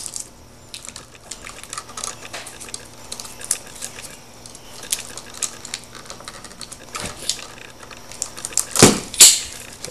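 Hands working electrical cable with hand tools: scattered small clicks and rustles of wire and plastic sheathing, then two loud sharp snaps near the end as the excess is cut off.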